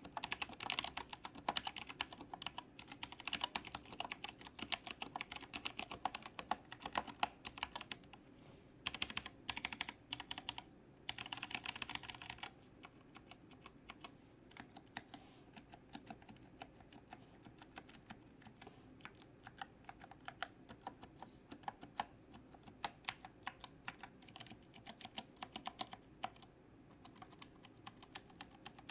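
Typing on a Kemove Snowfox 61 mechanical keyboard fitted with tactile Gateron Brown switches: fast, dense keystrokes for the first twelve seconds or so, then lighter, sparser typing.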